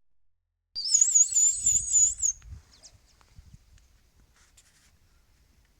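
A bird giving one high, wavering call about a second and a half long, its pitch wobbling up and down several times, with low rumbling handling noise underneath; afterwards only faint rustles and soft clicks.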